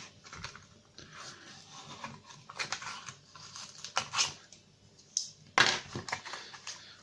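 Pocket knife hacking open a padlock's retail packet: irregular clicks, scrapes and tearing of the packaging, loudest in the second half.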